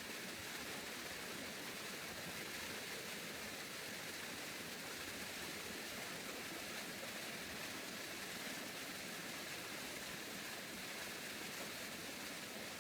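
Steady, even rushing hiss with no distinct strokes or tones.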